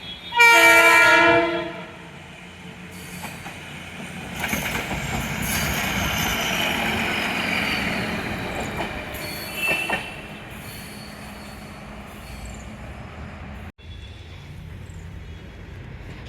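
Train horn sounds one loud blast of about a second, near the start. Then a train runs past at speed: a rushing rumble of wheels on rail builds from about four seconds, is loudest for several seconds, then eases to a steady lower rumble.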